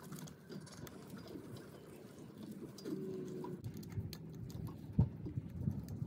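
Faint small metallic clicks and taps as the screws of a manual locking hub are threaded in and snugged by gloved fingers, with a sharper click about five seconds in. A short steady low tone sounds about three seconds in.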